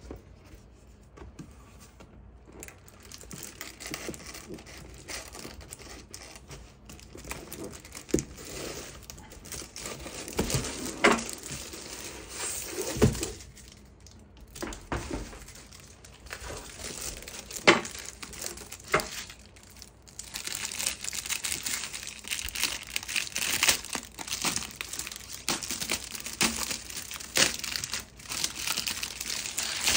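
Plastic shrink wrap crinkling and tearing as it is pulled off a backgammon board, the crackling growing busier in the second half. A few sharp knocks come in between, the loudest about halfway through.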